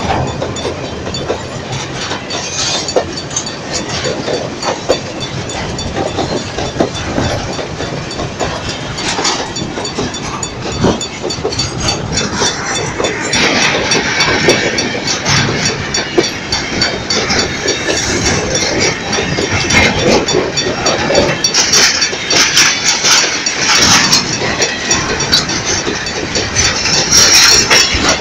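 Long freight train of empty grain hopper wagons rolling past close by, steel wheels clattering on the rails. It gets louder and sharper, with many clicks, from about halfway through.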